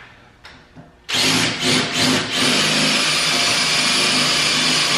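Power drill working on a stripped screw in a wheel hub, started with a few short bursts about a second in and then held running steadily.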